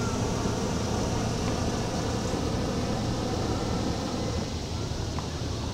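Hot air balloon's propane burner firing overhead in one long, steady blast.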